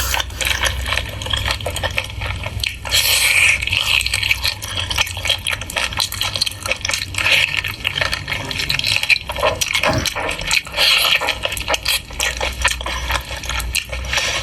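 Wet chewing and lip smacking of someone eating pork: a dense, irregular run of small clicks and squelches.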